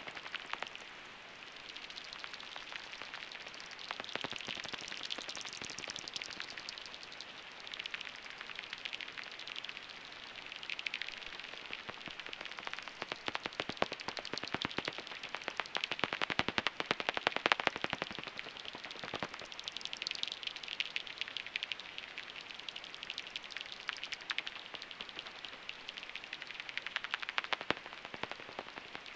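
Pipistrelle bats' echolocation calls heard through a heterodyne bat detector tuned to 44 kHz: rapid trains of dry clicks over a steady hiss. The clicks thicken and fade as bats pass, densest and loudest around the middle.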